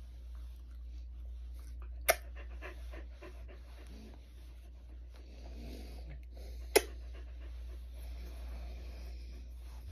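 Small dog breathing as it lies on its back being rubbed in a fleece blanket, with soft rustling from the hands. Two sharp clicks stand out, about two seconds in and about seven seconds in.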